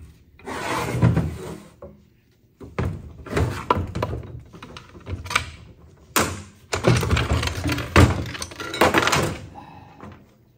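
Metal parts of a 700R4 automatic transmission clunking, rattling and scraping as it is taken apart, in three runs of knocks with short pauses between.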